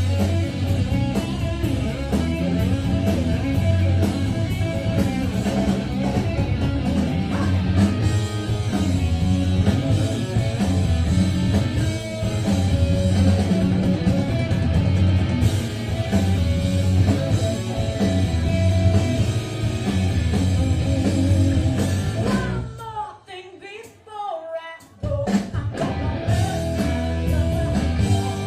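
A rock band playing live, with guitar and drums and a singer. Near the end the band drops out for about two seconds, leaving a lone bending vocal line, and then comes back in.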